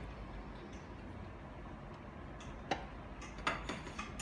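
Quiet room tone with a low hum and a few scattered light clicks and taps, mostly in the second half.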